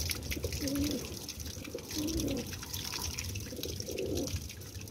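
Rock pigeons cooing: three short, low, warbling coos about a second and a half apart, over a low outdoor rumble and faint scattered clicks.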